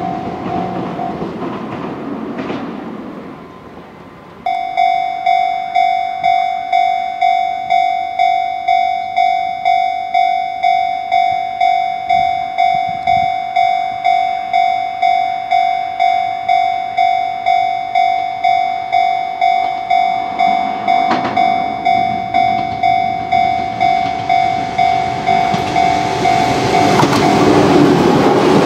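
Japanese level-crossing warning bell ringing: a steady, repeating electronic ding about twice a second, each stroke dying away, starting about four seconds in after the noise of a departing train fades. Near the end a Sunzu Line electric train comes through the crossing, its wheel and motor noise growing loud over the bell.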